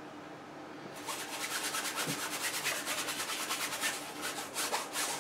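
A paintbrush scrubbing oil paint onto a stretched canvas in quick back-and-forth strokes, about eight a second, starting about a second in.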